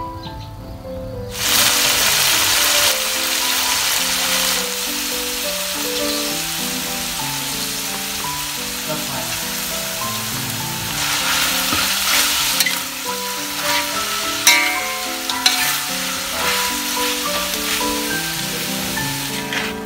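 Lemongrass chicken sizzling in a wok, starting about a second in, with a spatula stirring and a few sharp clinks against the pan, over background music.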